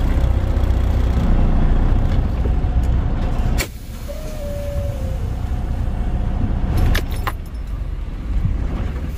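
Semi-truck diesel engine running with a steady low rumble, heard from inside the cab during a blind-side back into a dock. About three and a half seconds in there is a sharp click and the rumble drops to a quieter level, with a couple more clicks near the end.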